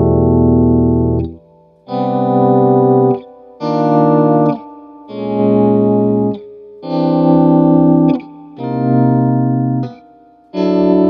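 Electric guitar played through a PC-2A photo-optical tube compressor pedal. It plays a run of about six held, strummed chords, each ringing for one to two seconds before it is stopped short with a faint click.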